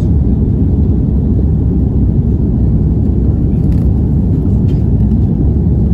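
Steady deep drone of an aircraft climbing after takeoff, engine and airflow noise heard from inside the passenger cabin. A few faint ticks sound about two-thirds of the way through.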